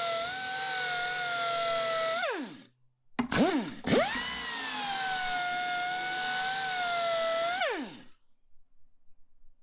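Power drill with a spot-weld bit drilling out spot welds in the car body's sheet steel: a steady whine that winds down about two seconds in. After a short blip it runs again for about four seconds and stops with a falling whine near eight seconds.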